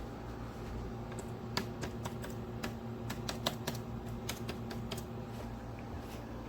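Corona CW-1619 window air conditioner running with its compressor on: a steady hum with several low tones. Over it, from about a second in to about five seconds in, comes an irregular run of sharp clicks.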